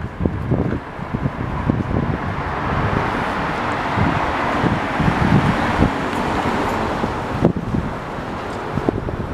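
Wind buffeting the microphone, with a road vehicle passing on a city street: its noise swells over a few seconds and drops away sharply about seven and a half seconds in.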